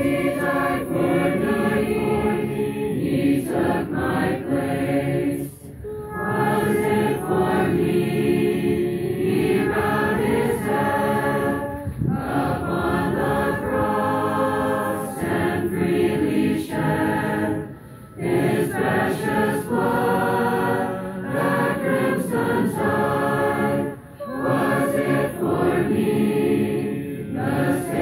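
A large group of men and women singing a hymn together, in long phrases broken by short pauses for breath about every six seconds.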